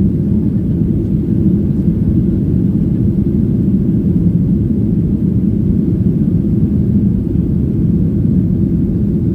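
Steady low rumble of a Boeing 737-900 airliner's jet engines and airflow, heard from inside the passenger cabin.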